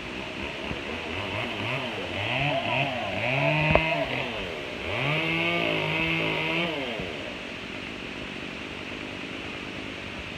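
Chainsaw engine revved in four quick rising bursts, then held high for about two seconds before dropping back. A sharp knock sounds partway through the quick revs.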